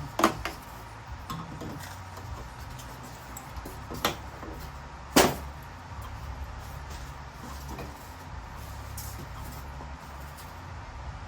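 Hard clunks and knocks of a paper cutter's parts being handled during disassembly: three sharp ones, just after the start, at about four seconds and at about five seconds, with a few faint clicks between, over a steady low hum.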